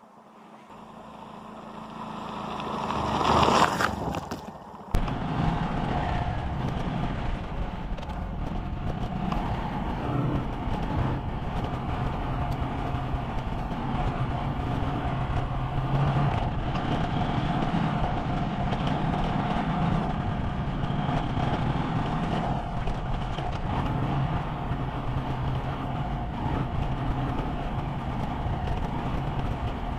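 A sound swells to a peak about three and a half seconds in and drops away. After a second's lull, the Honda Monkey 125's single-cylinder four-stroke engine starts up suddenly and runs steadily under way, with road and wind noise.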